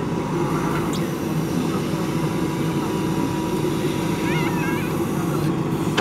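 JCB backhoe loader's diesel engine running steadily under load while the backhoe digs a trench and swings a bucket of soil.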